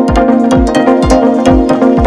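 Background music with a steady beat: a kick drum about twice a second under sustained chords and light high percussion.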